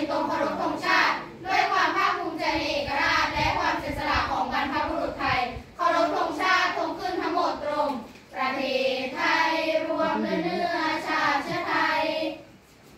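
A group of schoolgirls singing together in unison, phrase after phrase with short breaths between, until the song ends near the end.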